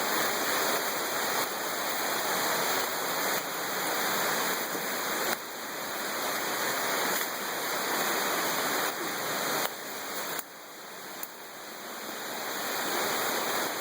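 Rushing creek water near a waterfall: a steady, even rush of falling water, stepping abruptly louder or softer a couple of times.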